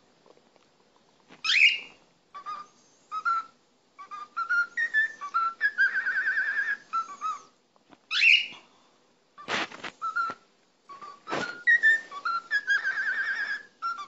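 Cockatiel whistling a string of short clear notes, some warbled, with two loud upward-sweeping chirps and two brief harsh sounds in the later half.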